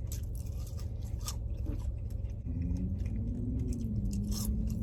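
Close-up chewing and crunching of fried seafood, with irregular crisp bites over a steady low rumble.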